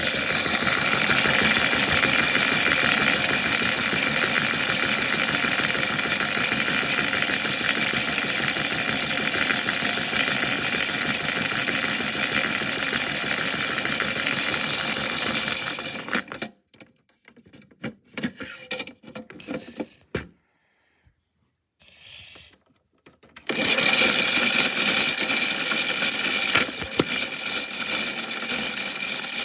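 Washing machine running loudly with a big rock rattling and banging around in its drum. The noise stops a little past halfway, goes almost silent for several seconds, then starts up again.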